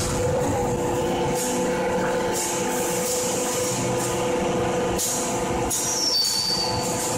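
8-tonne hydraulic open-die forging hammer and its hydraulic system running: a steady mechanical din with a constant hum, a couple of sharp knocks about five seconds in, and a brief high squeal just after.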